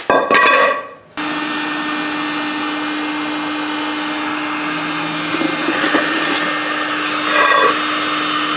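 Electric heat gun switched on about a second in and running steadily with a constant hum, blowing hot air over a new rubber tire to soften the cold, stiff rubber before it is fitted onto the rim.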